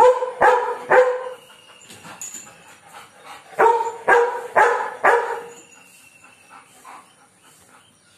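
German Shepherd barking at birds: three loud barks in quick succession, then after a pause of about two and a half seconds four more about half a second apart, then quieter.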